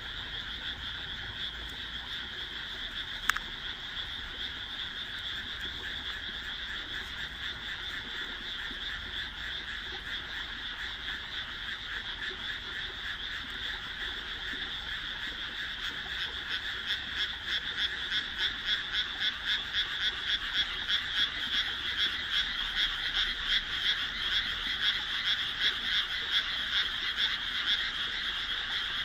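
Dense, steady chorus of many frogs calling. About halfway through, a louder pulsing run of calls builds up, roughly one or two pulses a second. A single sharp click comes about three seconds in.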